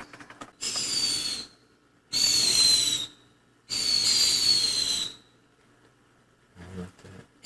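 Whistling fireworks going off one after another: three shrill whistles of about a second each, each dropping slightly in pitch over a hiss, with short quiet gaps between them.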